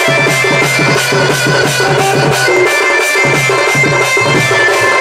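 Live folk music: a hand-played barrel drum (dhol) beats a fast even rhythm of about four to five strokes a second under a reedy wind instrument playing sustained notes.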